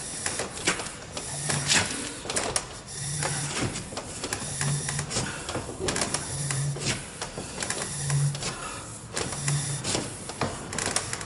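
Plastic plumbing pipe being pulled hand over hand off its coil and straightened across a wooden bench. Each pull gives a short, low rubbing note, about every second and a half, among scattered clicks and knocks.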